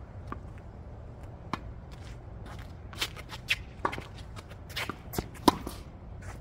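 Tennis shoes stepping and scuffing on a hard court, with a few sharp knocks of a tennis ball off racket strings and court; the loudest knock comes about five and a half seconds in.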